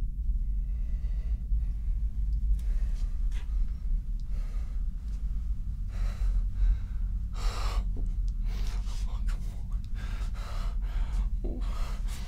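A man's voice: a run of short, sharp gasping breaths at irregular gaps, over a steady low hum.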